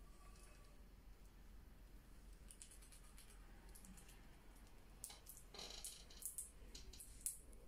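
Faint scattered clicks and light scratching against near silence, thickening into a quick cluster of clicks over the last few seconds.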